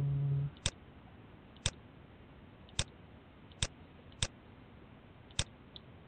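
Computer mouse clicking six times at uneven intervals, sharp single clicks, as checkboxes in a software dialog are selected.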